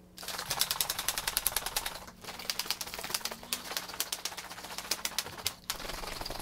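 Plastic shaker cup holding water and drink powder being shaken hard to mix it, a rapid rattling that pauses briefly twice.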